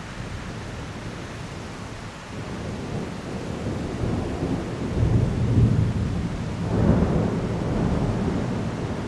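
Thunder rumbling over steady downpour rain. The rumble builds from about two seconds in, peaks twice in the middle, then dies away.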